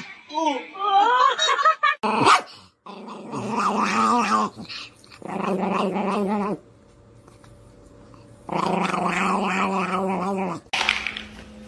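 A small chihuahua growling in three drawn-out, wavering bouts.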